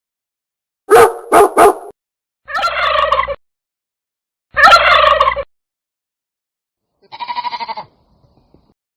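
Three quick dog barks, then two turkey gobbles, then a short bleat near the end.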